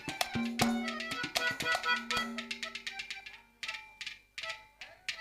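Instrumental folk music with hand drums struck in quick strokes under held melody notes, thinning out about halfway to a few scattered drum strokes.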